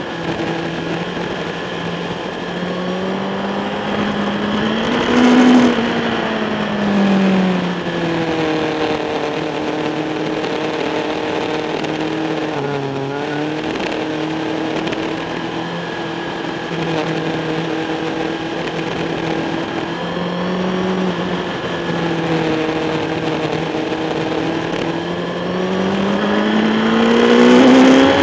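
Racing motorcycle's engine heard close up from the bike, rising in pitch under acceleration to a peak about five seconds in, easing back and holding fairly steady, then climbing again near the end, with wind rush throughout.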